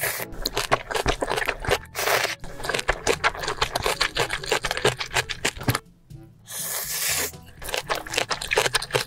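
Close-miked eating sounds: rapid wet chewing and mouth clicks, broken twice by a short burst of slurping.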